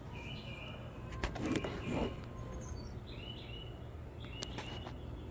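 Cut pieces of stained glass clicking and sliding on a gridded work surface as they are nudged into place, with a few sharp taps. Birds chirp repeatedly in the background over a low steady rumble.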